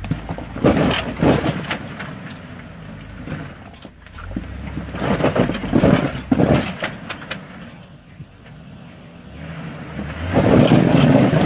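An off-road truck crawling over rock. The engine runs low with bursts of throttle, while the tyres and underside crunch and knock on stone. The engine gets louder and more sustained near the end.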